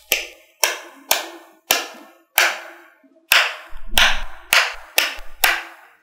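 Small magnetic balls snapping one by one onto a grid of other magnetic balls: about ten sharp clicks, each with a brief ringing decay, roughly every half second, with a quicker cluster a little past the middle.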